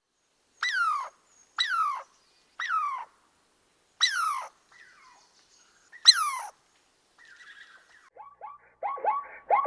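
An animal calling: five loud calls, each sliding down in pitch, spaced about a second apart at first and then further apart. Near the end a quick run of shorter, lower calls starts.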